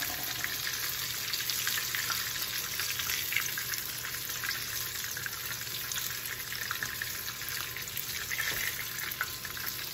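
Breaded chicken strips frying in hot oil in a skillet: a steady sizzle with many small crackles and pops.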